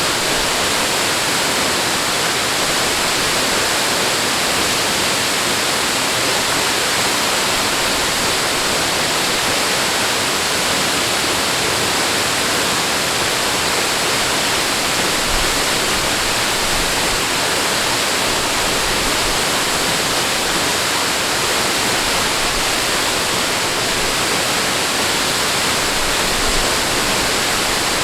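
Steady rush of running water, an even hiss with no swells or breaks.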